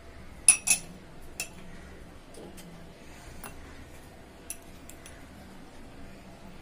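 Small metal teaspoon clinking against a steel plate and small glass spice bowls: two sharp ringing clinks about half a second in, then a scatter of lighter ticks and taps.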